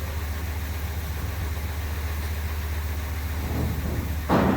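A steady low mechanical hum like an idling engine, with a sharp knock near the end.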